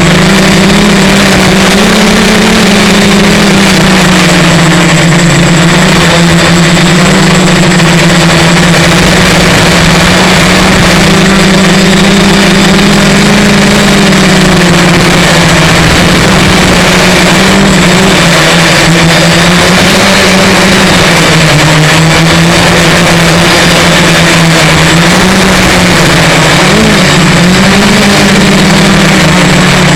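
X-copter multirotor's motors and propellers running with a steady, loud buzz whose pitch wavers up and down as the throttle shifts, over heavy rushing wind noise.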